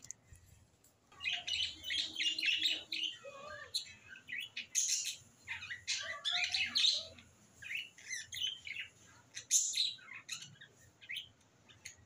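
Chopped garlic sizzling and crackling in hot soybean oil in a nonstick frying pan. It starts about a second in as the garlic goes into the oil and keeps up an irregular spitting and popping.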